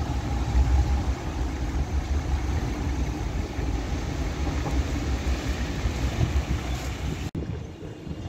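Low rumble of a tram running away along its track, with wind buffeting the microphone. The sound drops out for an instant near the end and comes back quieter.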